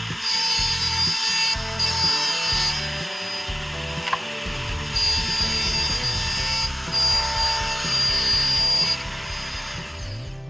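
Compact trim router running and cutting a circle into a wooden board, guided round on a circle-cutting jig. The cutting noise eases off about nine seconds in. Background music plays under it.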